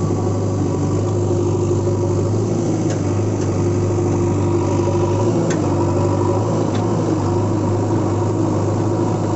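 Diesel engine idling steadily, like a tractor or backhoe loader: a sound effect laid over plastic toys that have no motor.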